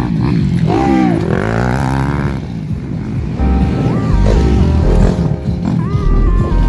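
Motocross dirt bike engines revving as they pass, pitch rising and falling. About halfway through, a synthesizer music track comes in and takes over.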